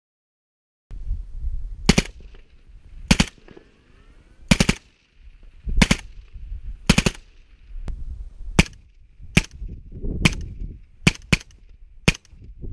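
Suppressed AK-pattern rifle with a Dead Air Wolverine PBS-1 suppressor firing single shots. About a dozen sharp reports come roughly a second apart at first, then closer together, starting after about a second of silence.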